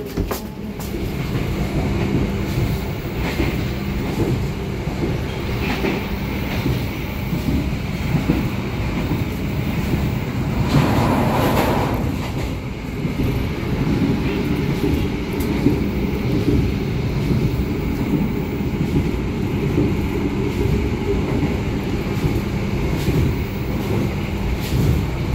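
Running noise of the KA Malabar passenger train heard inside an Ekonomi Premium coach while it travels. The wheels rumble and rattle on the rails over a steady low hum, and the noise swells louder for about a second around the middle.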